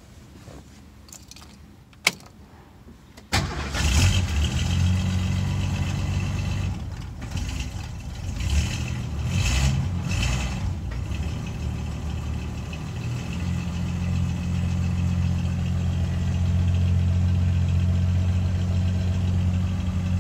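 1962 Mercury Comet's straight-six engine starting from cold. A single click about two seconds in, then the engine catches abruptly a little after three seconds, runs unevenly for several seconds, and settles into a steady idle.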